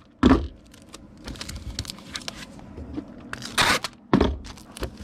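Adhesive tape pulled off the roll and torn, with rustling and small knocks of a cardboard mailer being handled. The loudest rips come just after the start and about three and a half seconds in.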